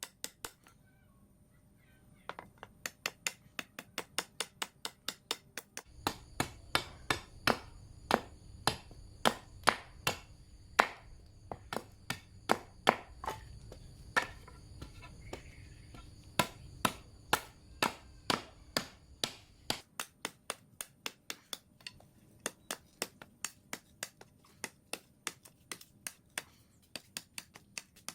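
Repeated blows from a hand tool during hoe repair, sharp knocks about two a second in a steady rhythm, with a short pause near the start.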